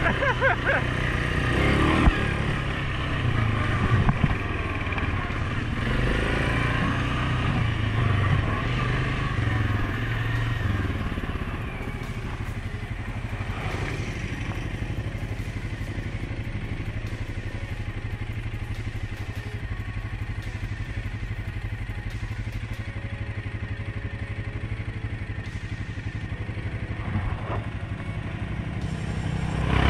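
Suzuki KingQuad 750 ATV's single-cylinder four-stroke engine running on a dirt trail, with the on-board mic close to it. About twelve seconds in it eases off to a quieter, steady low-speed running, then picks up again near the end.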